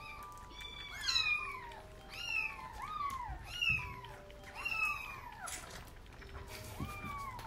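Kitten mewing: about six high cries, each rising then falling in pitch, with a longer pause before the last one.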